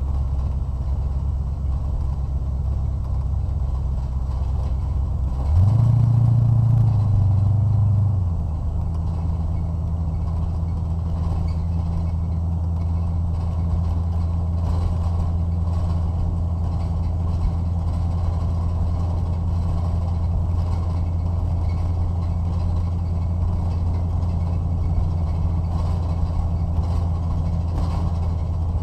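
A race car's engine running under load, heard from inside the cabin as it laps the track, a steady low drone. About six seconds in it gets louder and higher for a couple of seconds, then drops back to the steady drone.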